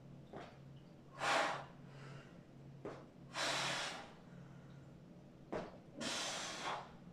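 A man breathing hard with exertion during leg raises: a quick breath in followed by a longer, forceful breath out, repeating about every two and a half seconds.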